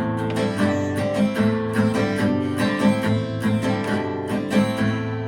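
Acoustic guitar strummed in a steady rhythm, chords ringing. The strumming stops shortly before the end and the last chord rings on.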